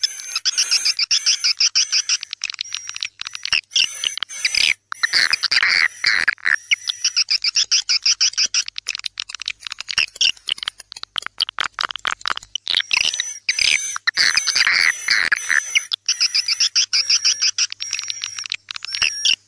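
Swiftlet lure sound track (a 'tarik senja' dusk call for drawing swiftlets into a nest house): dense, continuous twittering chirps and rapid chattering trills from many overlapping swiftlet calls.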